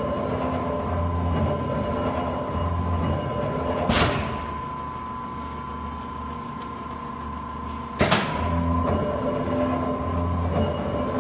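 Cincinnati Series 5 mechanical press brake running with a steady whine and a low pulsing drone. About four seconds in, a loud clack with a short hiss, then a quieter stretch, and a second loud clack about four seconds later, as the ram is cycled through one stroke.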